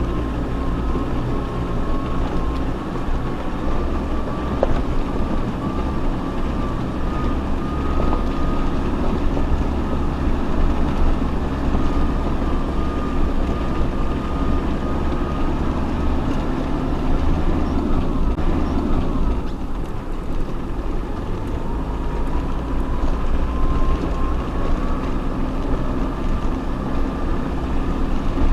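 Off-road vehicle driving slowly over a rough mountain track: a steady low engine and drivetrain rumble with a faint high whine that wavers in pitch.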